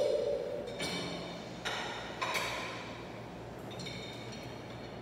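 Ceramic plates and dishes clinking, set one at a time into a dishwasher rack: several separate ringing clinks, the loudest a little past two seconds in.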